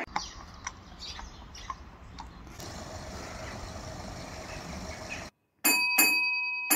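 A horse's hooves clopping slowly on the road, a light knock about every half second. Then, after a brief break, a signal box block bell struck three times, each strike ringing on in a clear tone.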